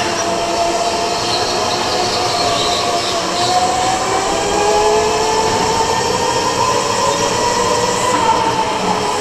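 Electric go-kart motor whining, its pitch rising and falling as the kart speeds up and slows through the bends, over tyre and wind noise.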